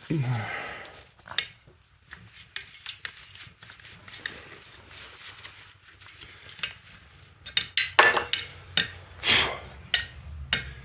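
Steel hand tools clinking and scraping on a cast-iron tractor cylinder head while a broken-off manifold bolt is worked back and forth, with louder ringing metal clanks near the end.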